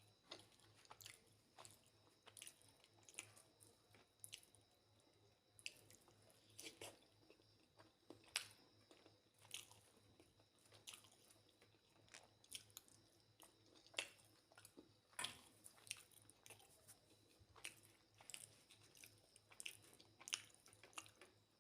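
Faint chewing: irregular wet mouth clicks and smacks of someone eating, roughly one every second, over a low steady hum.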